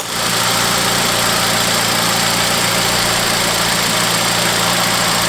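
Car engine idling steadily with the air conditioning switched on, a low hum under an even hiss. The electric radiator cooling fan is not turning, the fault behind the poor cooling.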